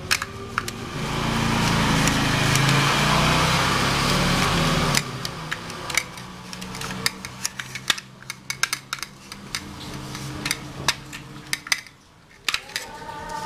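Plastic housings of a projector's optical block clicking and knocking as they are handled and scrubbed with a paintbrush in water. A steady rushing sound runs for about four seconds soon after the start, then stops abruptly, leaving scattered clicks.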